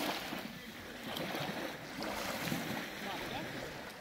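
Small lake waves lapping against a sandy shore, rising and falling in swells, with wind blowing on the microphone.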